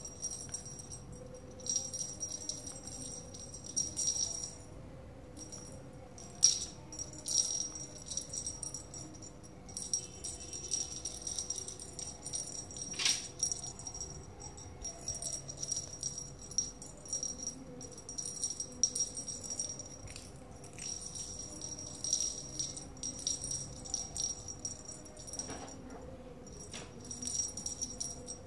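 Small bell on the tip of a cat wand toy jingling in repeated shaken bursts as the stick is waved and batted by a kitten, with short pauses between bursts.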